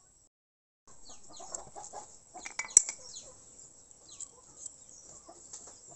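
Chickens clucking and small birds chirping, with one sharp click about three seconds in.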